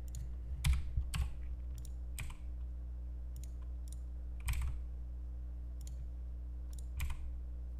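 Irregular computer keyboard and mouse clicks, about ten of them spread unevenly, over a steady low hum.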